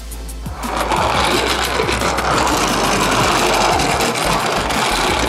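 Small plastic Dino Mecard Archelon toy car pushed by hand across a plastic play mat: a steady whirring rattle of its wheels rolling, starting about a second in.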